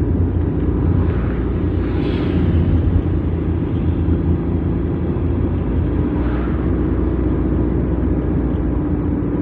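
Car engine and tyre rumble heard from inside the cabin while driving uphill, steady throughout, with a few faint higher sounds passing by.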